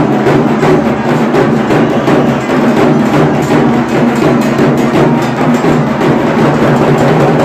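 Loud, fast drumming with a sharp, clacking beat, running without a break.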